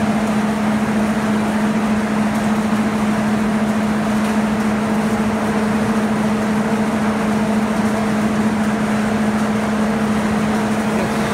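Olive mill machinery running steadily, with the conveyor belt carrying harvested olives toward the washer. There is a constant hum over an even mechanical rush.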